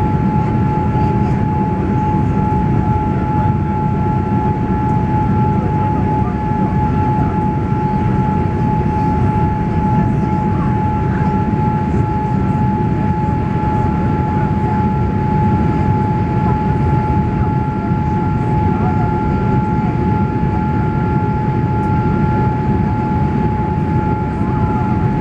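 Cabin noise of a Boeing 787 Dreamliner climbing after take-off, heard from a window seat over the wing: a steady deep roar of engines and airflow with a constant high whine running through it.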